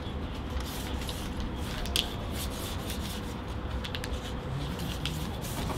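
A paper sign being rubbed and pressed flat against a wall: rustling and rubbing with a few light clicks, the clearest about two seconds in, over a steady faint hum.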